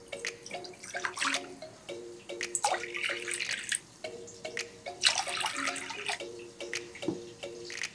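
Water poured from a glass tumbler into a glass bowl, splashing and trickling in separate pours, the longest about a second long. Soft background music plays underneath.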